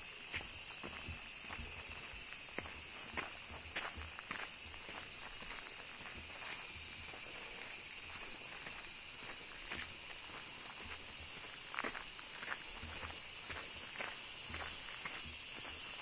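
Steady, loud, high-pitched chorus of summer cicadas, with a person's footsteps on a path underneath at a little under two steps a second.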